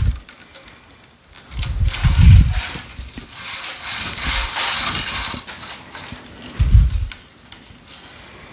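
Tennis string being woven by hand through a racket's main strings, with a long hiss about midway as the loose length of string is drawn through. Dull low thumps sound about two seconds in and again about seven seconds in.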